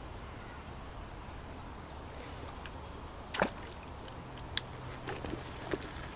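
A carp rod cast swishing through the air once, about halfway through, followed by a few short, sharp clicks.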